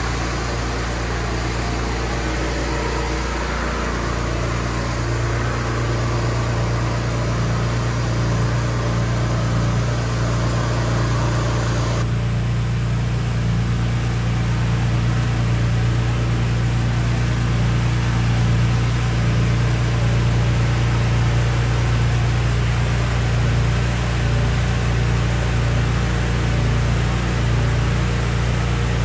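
Steady city street noise: a constant low mechanical hum under an even hiss. The upper part of the hiss drops away suddenly about twelve seconds in.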